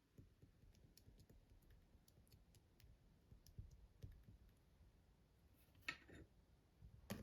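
Slime being handled: faint, scattered sticky clicks and small pops, with two louder crackling squelches about six seconds in and near the end.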